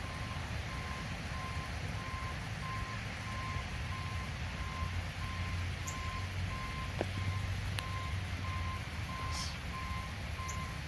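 Backup alarm of a hi-rail pickup truck beeping steadily, about one beep a second, as the truck reverses along the track, over the low rumble of its engine.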